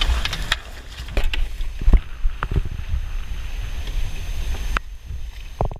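Wind rumbling on a GoPro's microphone aboard a small sailboat at sea, with a low rush of noise and a few sharp knocks scattered through it.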